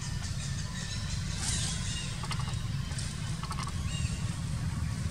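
Outdoor ambience: a steady low rumble, with a few faint short high chirps and a brief rustle about a second and a half in.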